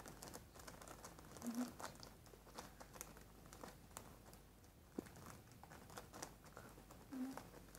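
Faint crinkling and rustling of packaging as a cube sticker set is unwrapped and handled, with scattered small clicks and one sharper click about five seconds in.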